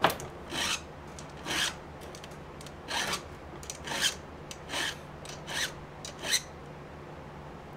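Hand file rasping across chainsaw chain cutter teeth, sharpening a chain dulled on rocks: about eight separate strokes, roughly one a second, that stop about two-thirds of the way through.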